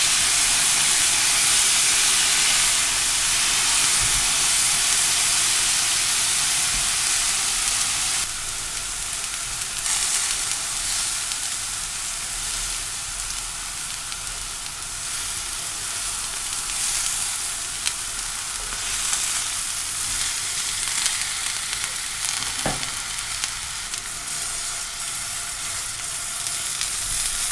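Thin slices of beef sizzling steadily in a hot cast-iron pan as they are turned and stirred. The sizzle is louder for the first several seconds, then settles a little lower, with a faint clink of the utensil on the pan once or twice.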